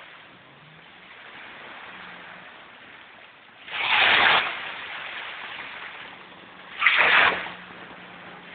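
Small waves breaking and washing up on a beach over a steady hiss of water, with two louder washes, about four seconds in and again about seven seconds in.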